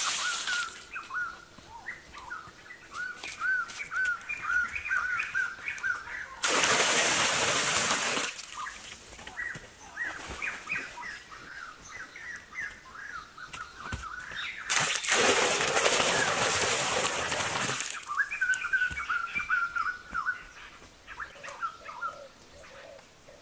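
Small birds chirping in quick, repeated short notes, broken twice by a loud rush of noise lasting two to three seconds, once about six seconds in and again at around fifteen seconds.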